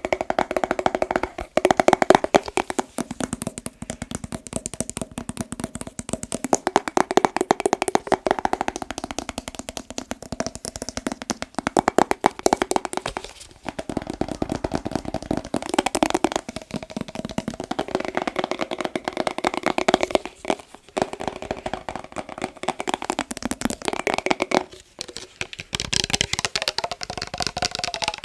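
Very fast tapping on a glass mason jar holding water, the glass ringing with a tone that wavers in pitch. The taps run in long flurries with a few brief breaks.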